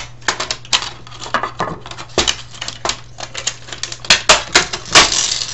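Irregular clicks, knocks and light rattling of a circuit board being worked loose and lifted out of a DVD player's sheet-steel chassis, with a louder scraping rush about five seconds in.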